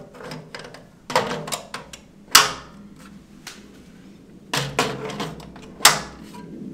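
Metal-cased DIN-rail power supply being fitted onto the mounting rail of a steel electrical cabinet: a few sharp clacks and knocks of metal on metal, the loudest about two and a half seconds in and again near the end.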